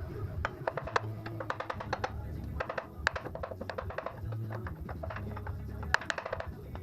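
Hammer blows on a seized steel part of a truck's front end, struck to break it loose: a run of sharp metallic impacts at an irregular pace, several a second, with the hardest hits about a second in, around three seconds and near six seconds. Background music plays underneath.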